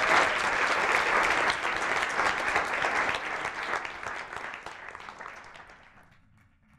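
Audience in a lecture hall applauding, many hands clapping at once; the clapping fades away and dies out about six seconds in.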